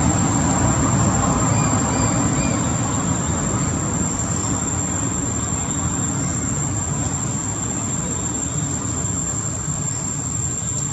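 Steady rumbling background noise with a constant high-pitched whine above it.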